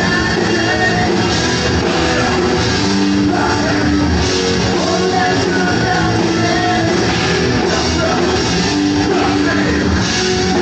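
Live punk rock band playing loud and without a break: electric guitar and bass guitar over a full band, with a man singing lead vocals into a microphone.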